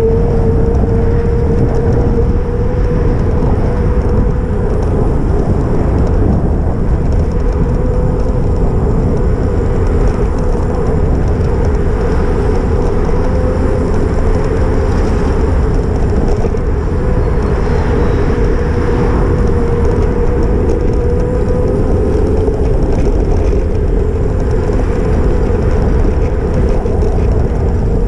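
E-bike's electric motor whining steadily, its pitch drifting slightly as the speed changes, over heavy wind rumble on the microphone.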